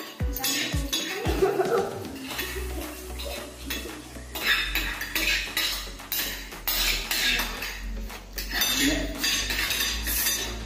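Metal spoons clinking and scraping against glass plates as several people eat quickly, with many short sharp clinks and a few brief voices.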